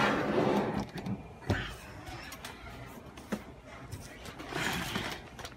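Handling noise as a desktop computer tower is turned around on a workbench: scraping and rubbing, with two light knocks, one about a second and a half in and one just past the middle.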